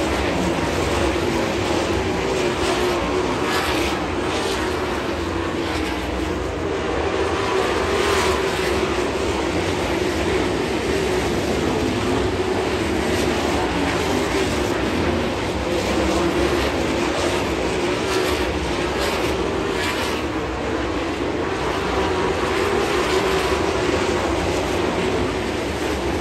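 Winged dirt-track sprint cars racing, their V8 engines running in a steady, unbroken drone that swells and eases a little as the cars come round.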